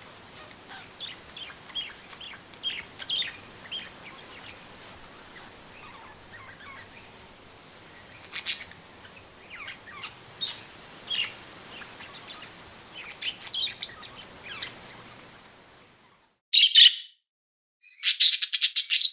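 Small birds chirping and calling: many short, separate chirps over a faint steady outdoor background. About sixteen seconds in the background cuts out, and two louder, separate bursts of rapid chirping follow on their own.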